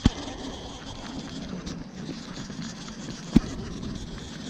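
Two sharp knocks, one right at the start and one about three and a half seconds in, over a steady outdoor background hiss.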